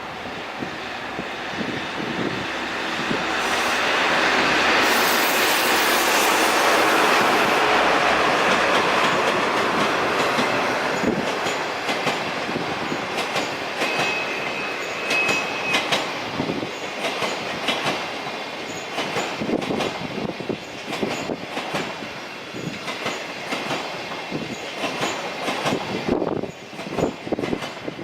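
Locomotive-hauled sleeper express train passing close by at night, building to a loud rush that peaks a few seconds in, then a long train of coaches clacking rhythmically over rail joints. A brief high-pitched squeal of wheels about halfway through.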